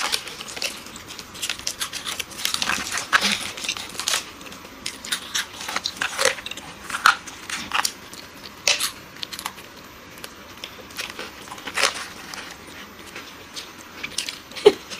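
Close-miked eating sounds: chewing and crunching of chocolate snacks with wet mouth clicks and smacks, coming as irregular short crisp clicks.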